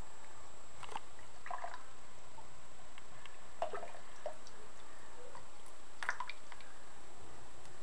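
Small, scattered splashes and drips of shallow water as Roborovski dwarf hamsters paddle through it, a few light plips every second or two over a steady faint hiss.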